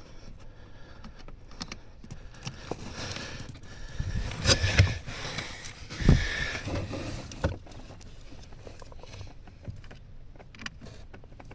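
Hands and a stubby Phillips screwdriver working blind under a car dashboard, rustling and scraping while the top screw of an air door actuator is fitted by feel. Louder knocks come about four and a half and six seconds in.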